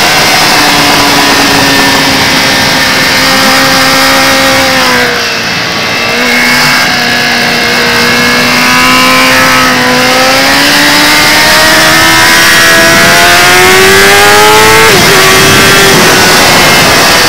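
Kawasaki ZX-10R inline-four engine running hard at high revs with wind rush, heard from the bike. The pitch sags and the sound dips as the throttle eases about five seconds in, then climbs steadily under acceleration and drops sharply about fifteen seconds in with an upshift.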